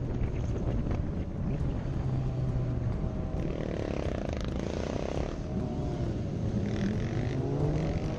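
Sport motorcycle engines running as a group rides along. Near the end an engine revs up, its pitch climbing steadily.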